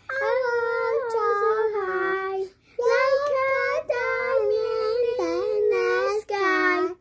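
Two young girls singing a tune together in held, drawn-out notes, with a brief break about two and a half seconds in.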